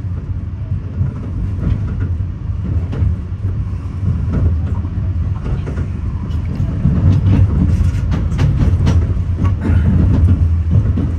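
Metra commuter train rolling over the switches, heard from inside the rear car: a steady low rumble of the wheels with irregular clicks and clacks as they cross the turnouts and rail joints, growing a little louder in the last few seconds.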